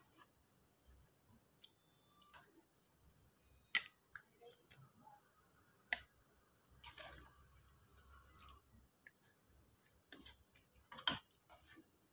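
Faint, scattered clicks and a brief scrape of a wooden spatula against a metal wok and a plate as saucy fish is scooped out, the loudest knock near the end.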